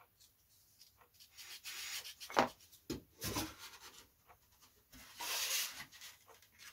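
Balsa-wood former being rubbed down by hand with a sanding stick in a few short scraping strokes, with a light knock about two and a half seconds in and a longer scrape near the end. The piece is being trimmed because it is still slightly too wide to fit.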